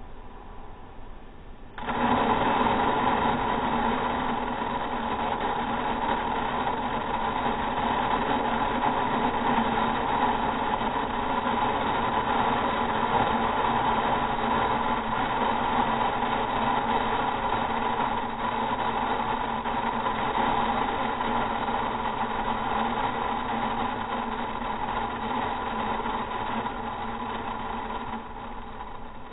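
Wheat grain pouring from a bucket through a box fan's airstream into a plastic bin, slowed to quarter speed so it comes out as a deep, steady rush with the fan's hum under it. It starts suddenly about two seconds in and falls away near the end.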